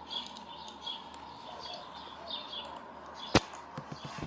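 Small birds chirping repeatedly in the background, with one sharp click a little over three seconds in and a few lighter clicks after it, as the plastic toy train tender is pried at by hand.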